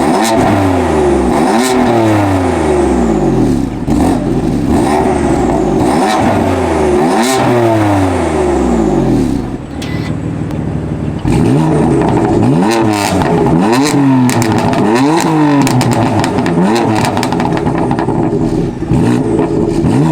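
BMW F82 M4's twin-turbo straight-six, running catless downpipes and a tune through the stock exhaust, revved repeatedly: a string of quick blips, each rising and falling back. There is a brief break a little before halfway, then more revs.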